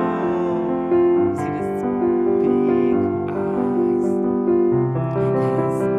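Background music: a slow piano tune of held notes.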